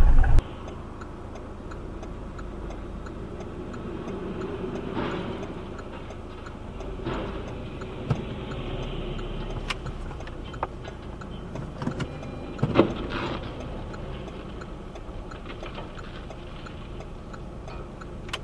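Car interior heard through a dashcam: a steady engine and road drone with a light, regular ticking running through it. Several sharp knocks break in, the loudest cluster about two-thirds of the way through.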